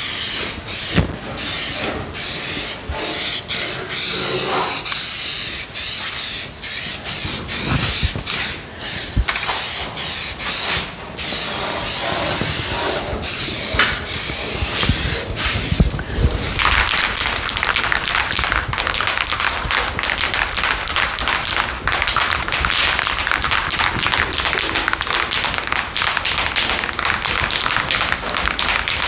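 Masking tape being peeled off fresh car paint: a crackling hiss in long pulls with short breaks, running without a break from about halfway through.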